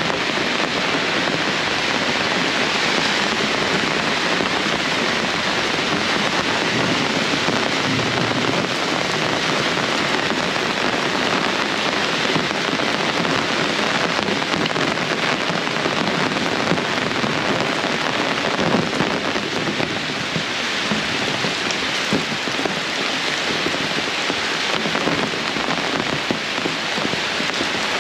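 Heavy rain falling steadily: a dense, even hiss of rain hitting the ground and surfaces, flecked with the fine ticks of individual drops.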